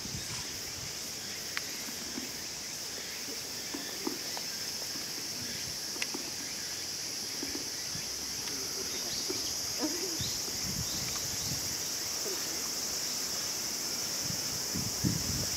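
Steady, high-pitched insect chorus from the surrounding trees, with a few faint clicks and soft low murmurs scattered through it.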